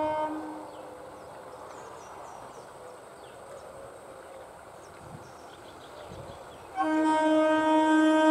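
Horn of an ICF EMU commuter train: a short steady blast at the start, then quieter for several seconds, then a long, loud blast from about seven seconds in as the train approaches.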